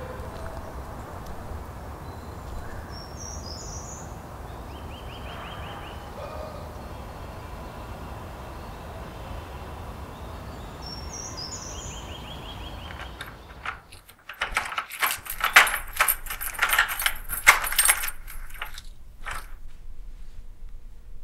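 A steady low outdoor rumble with two short bird calls, each a quick run of notes. After a sudden cut, keys jangle and clink loudly for several seconds, then a few softer clicks follow.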